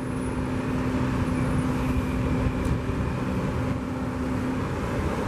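Steady rumble of road traffic with a low, even hum that stops about four and a half seconds in.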